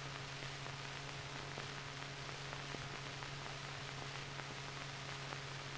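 Faint steady hiss with a low hum and scattered faint clicks: the background noise of an old film soundtrack, with no narration.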